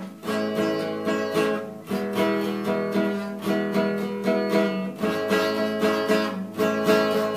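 Acoustic guitar strummed in a steady rhythm, the chord changing about every second and a half: the instrumental intro to a sertanejo song.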